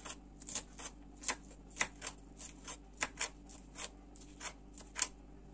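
A small kitchen knife chopping purslane on a cutting board: quick, irregular blade taps, about three a second, stopping about five seconds in.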